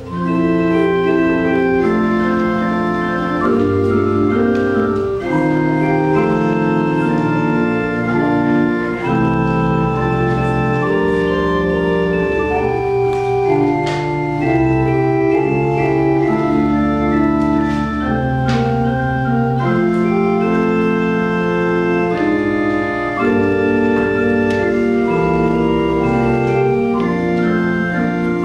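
Church organ playing slow, held chords over low bass pedal notes, the chords changing every second or two.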